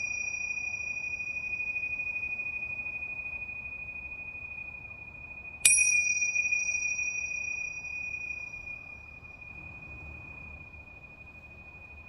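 Pair of tingsha cymbals ringing with one clear, high tone. They are struck together once about halfway through, and the ring slowly fades away.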